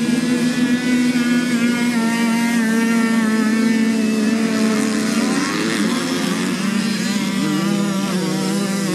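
Several small two-stroke moped-engined motocross bikes racing at high revs, their engine notes overlapping. The loudest engine holds a steady high note, then wavers and falls about five seconds in before settling at a lower pitch.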